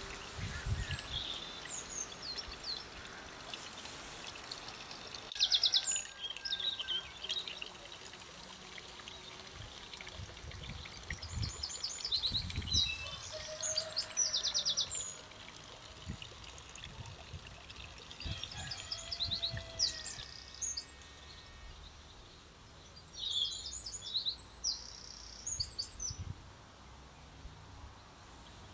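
Songbird singing in a garden: four short song phrases with fast high trills, separated by pauses of a few seconds, over faint low gusts of wind on the microphone.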